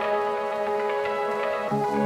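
Background music of held, sustained tones, with lower notes coming in near the end.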